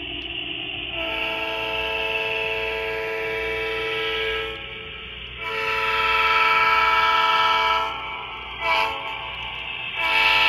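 Simulated multi-chime diesel horn from the Quantum Sound decoder of an HO-scale Atlas EMD SDP35, played through the model's small onboard speaker. It sounds two long blasts, a short one, then a fourth long blast starting near the end: the long-long-short-long grade-crossing signal.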